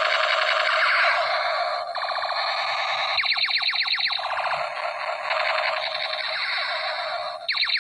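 Electronic sound effects from a battery-powered toy pistol's small speaker: a warbling, siren-like tone, then runs of rapid repeated zapping chirps, once in the middle and again near the end.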